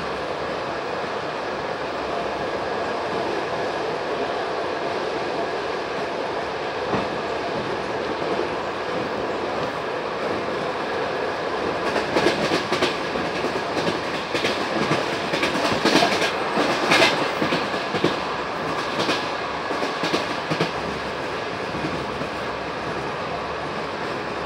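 Passenger train coach rolling along the track with a steady rumble. About halfway through, a run of sharp, irregular wheel clacks sets in as the wheels clatter over the track. The clacks die away near the end.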